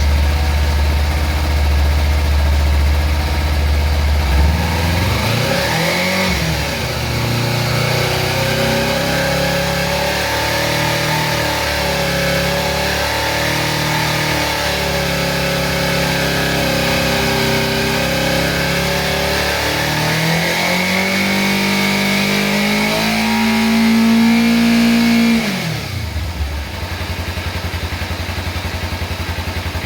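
Kawasaki Ninja 300's parallel-twin engine through its stock exhaust. It idles, is revved about five seconds in and held unsteadily around 4,000 RPM, then is raised to about 7,000 RPM and held for several seconds before dropping back to idle near the end.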